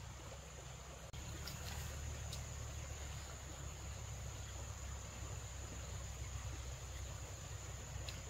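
Insects chirring steadily in a high, continuous tone, over a low rumble that grows louder about a second in.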